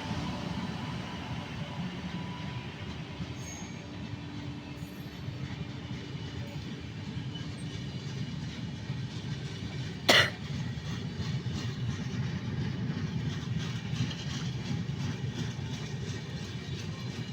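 Indian Railways train rolling with a steady low rumble, and one sharp loud knock about ten seconds in. Faint regular clicks in the second half.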